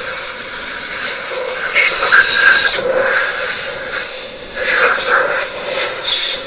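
Compressed-air degreasing spray gun hissing as it blasts solvent over a cylinder head. The hiss swells and eases, loudest about two seconds in.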